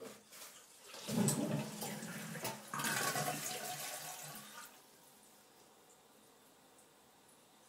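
Cat urinating through the hole of a litter-filled toilet-training seat into the water of the toilet bowl: a splashing trickle that starts about a second in and stops after about three and a half seconds.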